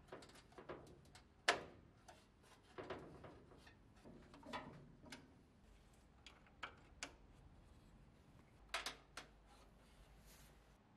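Scattered light clicks and knocks of cable connectors being plugged in and parts handled inside a steel electrical cabinet, with a sharper click about a second and a half in and a quick pair near the end.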